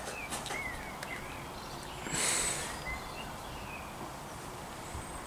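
Faint, scattered bird chirps over a steady outdoor background hiss, with a short rushing noise about two seconds in.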